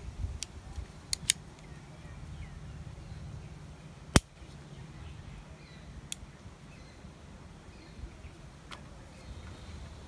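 Sharp metallic clicks of a Leatherman Wave Plus multitool being folded shut, its handles and tools snapping closed: about six clicks, the loudest a little after four seconds in.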